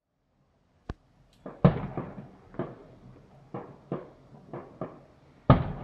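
Fireworks exploding: a sharp crack about a second in, then a string of bangs, each trailing off in an echo, the loudest about a second and a half in and again near the end.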